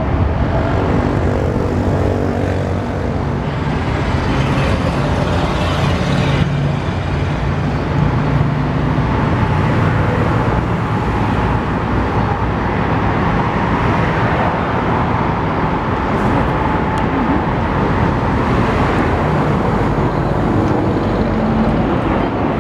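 Boeing C-17A Globemaster III's four turbofan engines at takeoff power during the takeoff roll: a loud, steady jet roar with a deep rumble, and a thin whine through the middle.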